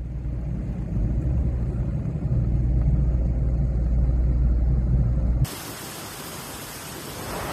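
Steady low rumble of a flooded, fast-flowing river heard close to the water. About five and a half seconds in it cuts abruptly to a brighter, hissing rush of floodwater.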